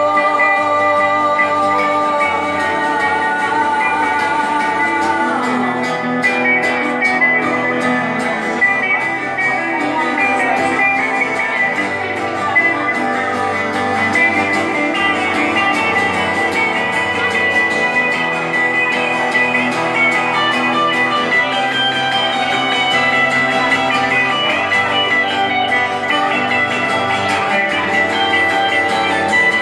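An acoustic guitar and an electric guitar playing together live, an instrumental stretch with no singing. Held notes ring for the first few seconds, then quicker moving notes run over the chords.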